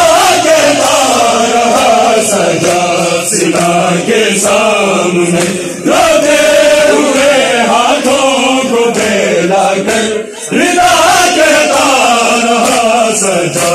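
Men's voices chanting a Shia mourning lament (noha) together, with open-handed chest-beating (matam) keeping time. The chant breaks off briefly twice, about six and ten seconds in, between lines.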